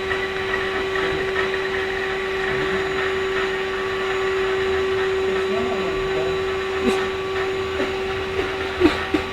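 Prototype cordless vacuum cleaner running with a steady motor whine and airflow noise, with a few sharp knocks near the end.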